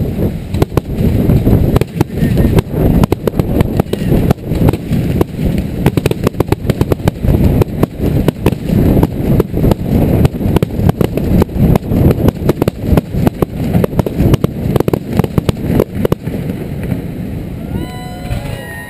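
Fireworks finale barrage: aerial shells bursting in a dense, continuous run of bangs and crackles, many per second, over a low rumble. Near the end the bangs thin out and several whistles from whistling fireworks start.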